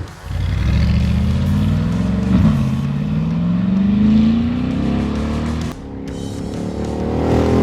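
Brabus G800's twin-turbo V8 accelerating hard through a full turbo-back exhaust with custom downpipes. The exhaust note climbs in pitch, drops sharply at an upshift about two and a half seconds in, and climbs again. It eases off briefly near six seconds before building once more.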